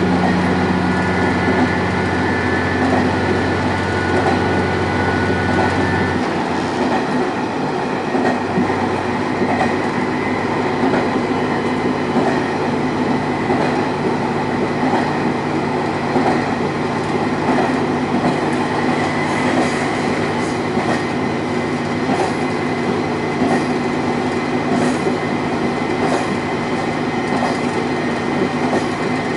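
Diesel railcar running along the line, heard from inside the car. The engine hum and a higher whine run steadily, then change about six seconds in. After that the wheels roll on the rails, with faint repeated clicks later on.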